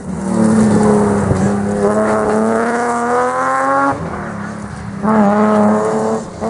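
Rally car engine, a BMW 3 Series saloon, accelerating hard with its pitch climbing steadily for about four seconds. The level then drops, and a second burst of engine noise at high revs comes about five seconds in.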